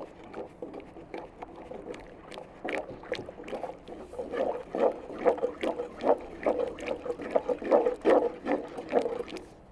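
Wooden spoon stirring dovga, a thick yogurt soup with greens, in a large pot: repeated sloshing strokes through the liquid, louder and busier from about three seconds in.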